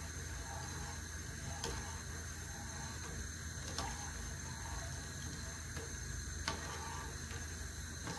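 Metal spoon stirring sugar syrup in a saucepan to dissolve the sugar, with a few sharp clicks as the spoon knocks the pan, over a steady low hum.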